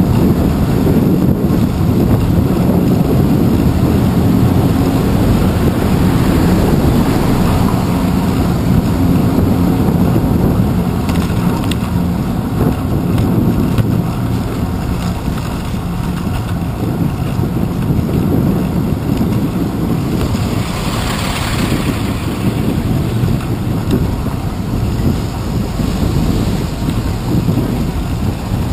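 Wind and road rumble on a handlebar-mounted GoPro Hero 2 riding on a moving bicycle: a loud, steady low rumble mixed with city traffic. A short burst of hissing noise rises and fades about two-thirds of the way through.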